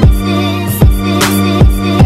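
Background music with a steady beat, a little over two beats a second, under held notes.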